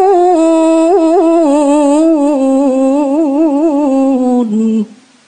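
A young woman's voice in melodic Quran recitation (tilawah), holding and ornamenting the long final vowel of a verse with quick trills. The note steps gradually down in pitch and stops about five seconds in, leaving faint hiss.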